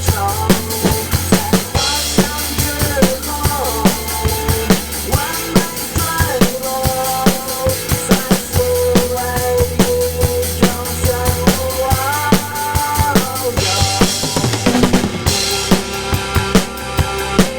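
Drum kit played along to a pop song's backing track: steady kick, snare and hi-hat strokes under a sustained melody and bass line, with crash cymbal accents about two seconds in and again near the end.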